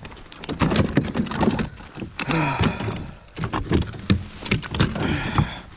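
Scattered knocks, thuds and clicks on a fishing kayak's hull and gear, from handling a just-landed bass in the boat.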